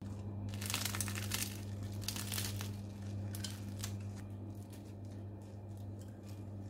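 Flaky, butter-laminated crust of a baked bread roll crackling as hands pull it apart, dense crackles over the first few seconds thinning to scattered ones, over a steady low hum.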